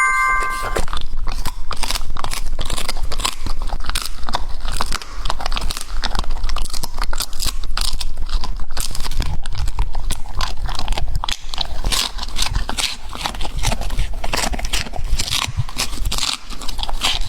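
A dog chewing and crunching something hard: a long, irregular run of crisp crunches. A short chime rings briefly at the very start.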